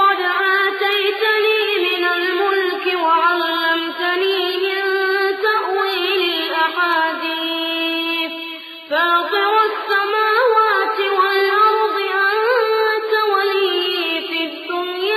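A young reciter's voice chanting Quranic recitation in a long, melodic line, with a short breath pause about nine seconds in.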